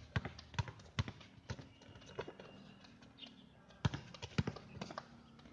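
Basketball bounced on an outdoor hard court: a run of sharp bounces roughly twice a second over the first two seconds, a lull, then several more about four seconds in.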